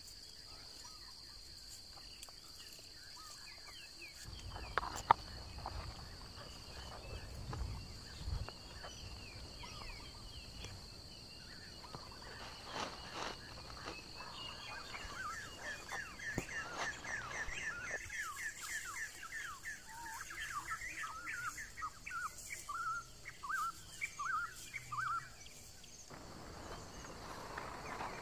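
Quiet forest ambience: a steady high insect drone, a sharp knock about five seconds in, then a bird singing a long run of quick, repeated chirps from about the middle, stopping near the end.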